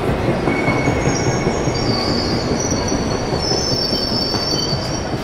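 Train brakes squealing: a high squeal of several steady tones comes in about a second in and dies away near the end, over the steady low rumble of the train.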